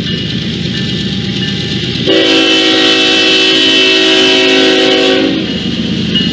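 Train rumbling past with wheel noise on the rails. About two seconds in, the locomotive's air horn sounds one long blast of about three seconds, a chord of several notes.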